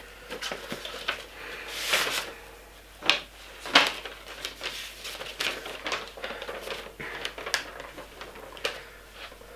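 A sheet of paper being unfolded and handled: irregular crinkling and rustling with sharp crackles, loudest about two and four seconds in.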